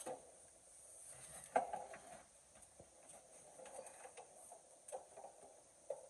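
Faint, scattered clicks and knocks of metal parts being handled inside a Chevrolet Silverado door shell while a new door latch is fitted. The loudest knock comes about a second and a half in.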